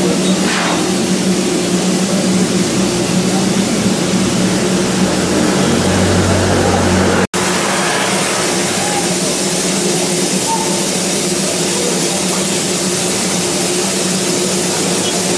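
Darjeeling Himalayan Railway B-class narrow-gauge steam locomotive standing in steam, hissing steadily with a low hum under the hiss. The sound drops out for an instant about seven seconds in.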